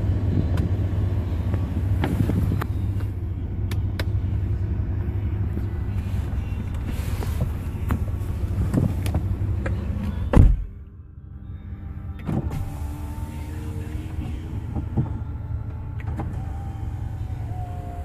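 Low rumble of wind and handling noise, then a car door shutting with a heavy thump about ten seconds in, after which it goes quieter. Near the end the BMW 740i's electric window motor whines as the side glass moves.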